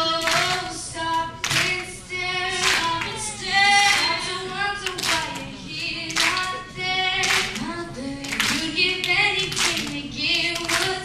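Female singing, amplified through a microphone, with acoustic guitar and a steady beat of sharp strokes about twice a second.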